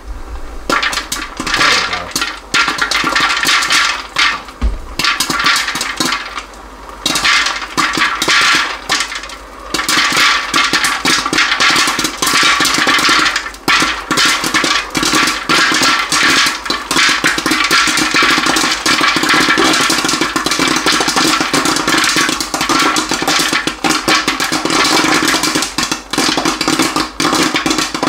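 Popcorn kernels popping in a West Bend Stir Crazy electric popper. The pops come in scattered runs at first and become a dense, continuous crackle from about ten seconds in: the batch at full pop.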